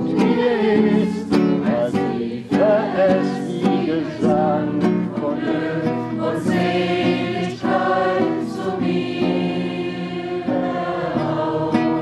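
A group of people singing together in chorus, accompanied by a strummed acoustic guitar. The singing breaks off suddenly at the end.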